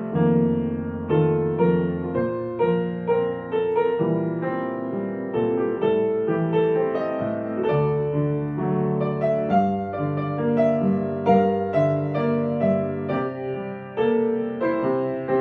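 Soft piano music, a melody of gently struck notes over sustained lower notes.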